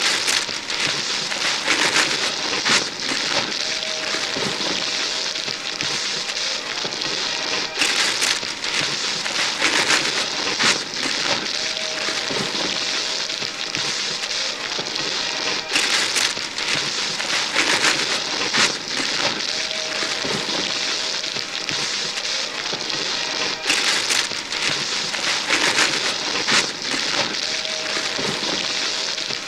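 Christmas wrapping paper and tissue paper being ripped and crumpled by several pairs of hands at once: a continuous crackling rustle broken by sharp tearing rips. The same stretch of tearing repeats about every eight seconds.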